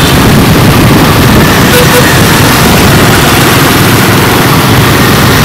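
Honda Win motorcycle's small single-cylinder four-stroke engine running while riding, mixed with the engines of surrounding scooters and motorbikes in traffic. The whole is a loud, steady rush with no single event standing out.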